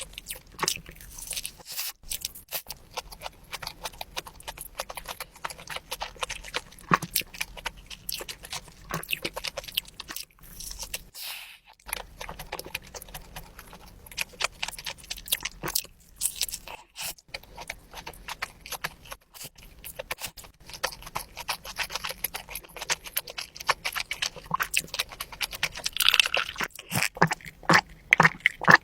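Close-miked chewing of a black truffle burger, with wet, sticky mouth sounds and occasional soft crunches at an irregular pace.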